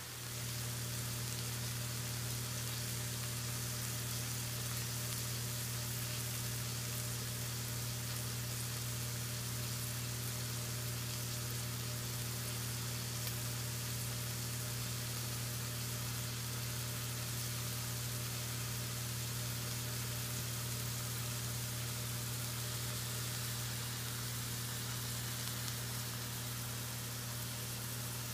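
Steak and sliced mushrooms sizzling gently in butter in a cast iron skillet, a steady soft frying hiss. Under it runs a constant low hum.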